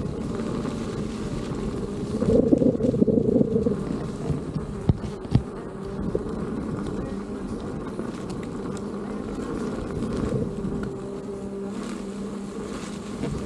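Veteran Sherman S electric unicycle's hub motor whining steadily while riding, over wind rumbling on the microphone, with a couple of knocks about five seconds in.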